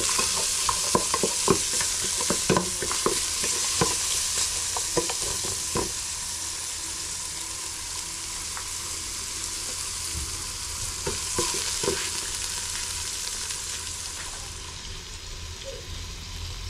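Garlic, lemongrass, chili and galangal sizzling as they are stir-fried in a large metal pot, a wooden spoon scraping and knocking against the pot many times in the first six seconds. After that the sizzling goes on with only a few knocks and quietens near the end.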